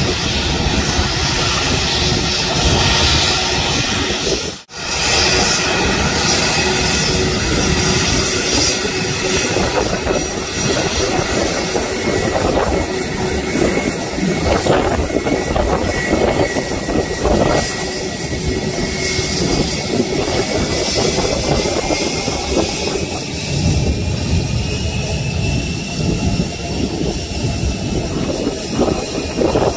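Twin jet engines of an Airbus A320-family airliner running as it taxis, a loud steady rush with a high whine. The sound drops out briefly about four and a half seconds in, and near the end the whine rises and then falls in pitch as the aircraft moves past.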